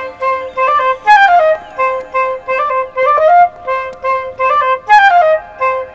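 Background music: a light woodwind tune of short, detached notes, with a stepping-down run about a second in and again near the end.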